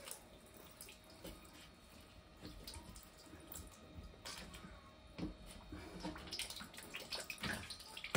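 Water trickling and dripping from an opened central heating pipe at the wall, with faint clicks and rustles as hands work the pipe fitting.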